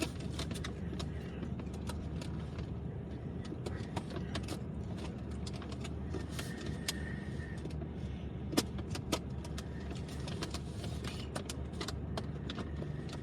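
Plastic lid of a takeaway yogurt bowl clicking and crackling as it is pressed and forced onto the bowl, which it will not fit back onto, over a steady low hum.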